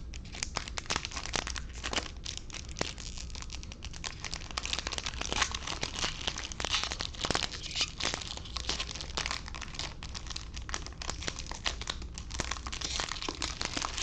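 Foil wrapper of a Topps Chrome baseball card pack being torn open and crinkled by hand, an irregular crackling that runs without a break.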